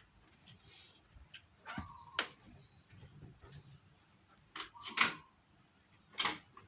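Sharp mechanical clicks and clunks from a cassette deck's transport being worked, the loudest about two, five and six seconds in, two of them with a brief whirring tone.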